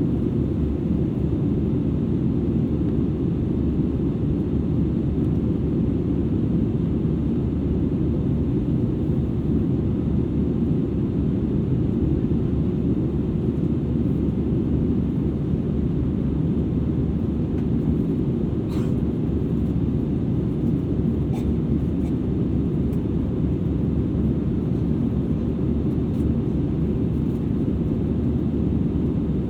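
Steady cabin roar inside an Airbus A320-200ceo at cruise, heard from a rear seat: deep, even engine and airflow noise with no change in level. A couple of faint small clicks come about two-thirds of the way through.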